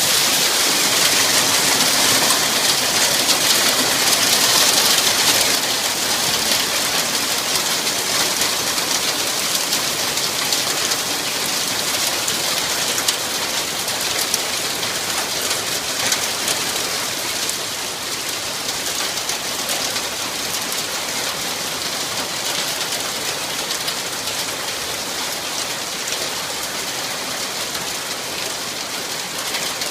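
Heavy rain pouring down in a steady hiss, a little louder for the first six seconds and then easing slightly.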